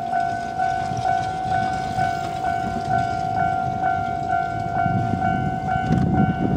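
Japanese level-crossing warning bell ringing its steady two-tone electronic 'kan-kan', re-struck about twice a second, the crossing's signal that a train is coming. A low rumble grows under it near the end.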